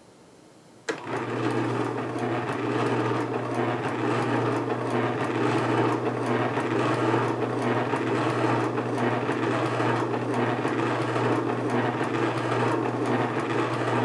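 Omega VSJ843 vertical single-auger slow juicer switched on about a second in and running empty: a steady motor hum with fine clicking throughout, about 67 dB on a meter close by. It is switched off at the very end.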